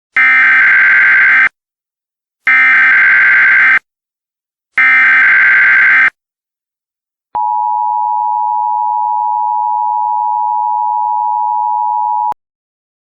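Emergency Alert System header: three identical bursts of warbling SAME digital data tones, each about a second and a half long, then the steady two-tone attention signal held for about five seconds, announcing an emergency broadcast message.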